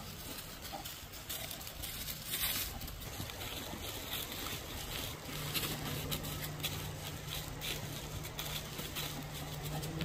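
Shar-pei dogs' paws shuffling and rustling through dry leaf litter and undergrowth, a scatter of small crackles and rustles. A low steady hum comes in about halfway through.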